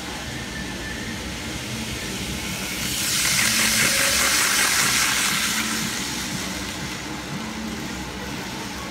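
Model Shinkansen E2 train running on its track. Its rolling hiss swells as the train passes close by, from about three seconds in, then fades after about six seconds.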